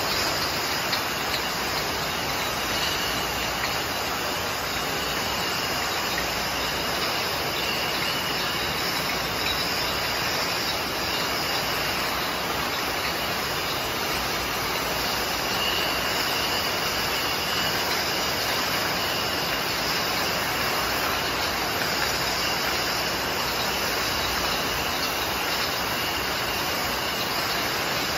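Filled glass soda bottles jostling and clinking against one another as they ride a bottling-line conveyor, over the steady running of the line's machinery. It is a dense, unbroken clatter at an even level.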